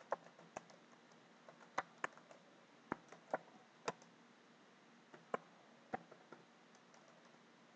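Computer keyboard keystrokes: about nine faint, separate key clicks at an unhurried, irregular pace as a line of code is typed.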